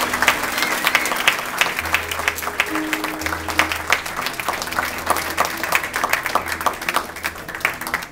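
A room of people clapping steadily over band music that holds low sustained notes. Both cut off suddenly right at the end.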